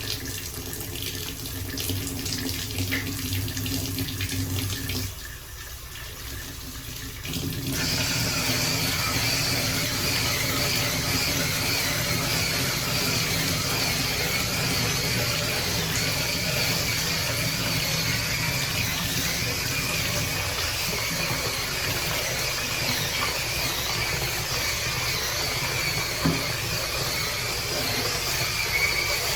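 Tap water running into a sink while plastic cup holder inserts are rinsed; the flow gets louder and steadier about eight seconds in.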